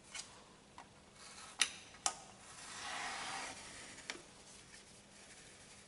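A factory label being picked at and peeled off a car's painted door pillar: a few sharp clicks and taps, and a short rasping scrape of the sticker coming away about halfway through.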